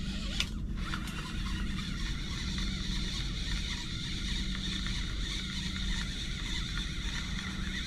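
Steady hiss with a constant low hum underneath, and a single short click about half a second in.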